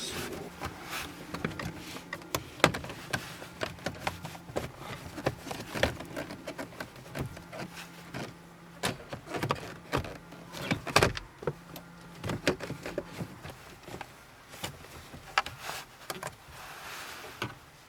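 Plastic steering-column trim being pried and handled by hand: an irregular string of clicks, snaps and knocks as the clips give and the panels shift.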